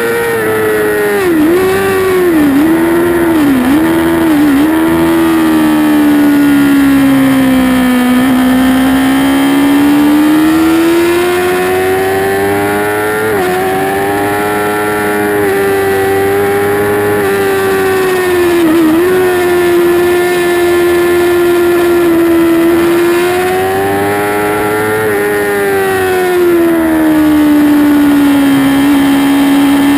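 2008 Yamaha YZF-R6's inline-four engine screaming at high revs under racing use: four quick downshifts in the first few seconds, each a short dip and jump in pitch, then the note sinks low and climbs again as the throttle opens. Another downshift blip comes about two-thirds through, and the pitch steps down and settles near the end.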